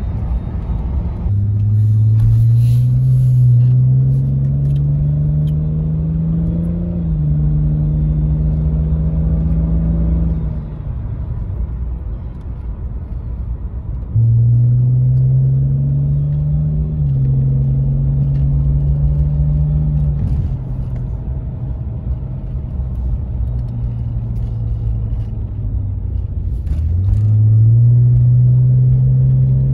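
BMW E46 3 Series engine, exhaust and intake heard from inside the cabin as the car accelerates. The revs climb, drop at a gear change about seven seconds in, and the engine eases off for a few seconds around the middle. It then pulls hard again, shifts once more, and starts climbing again near the end.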